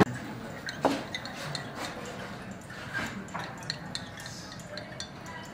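Small, irregular ticks and clinks of laboratory glassware as a burette stopcock is worked and a conical flask is swirled drop by drop during a titration.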